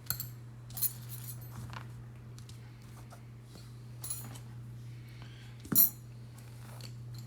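Light metallic clicks and clinks as the opened iPod Classic and small metal tools are handled, a few scattered taps with the sharpest one about six seconds in. A steady low hum runs underneath.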